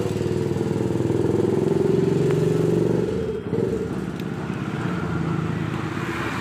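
A motorcycle engine running steadily, with a brief dip in level about three and a half seconds in before it carries on.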